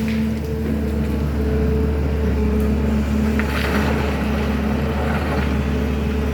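SANY excavator's diesel engine running steadily with a constant low hum, with a brief rush of noise a few seconds in.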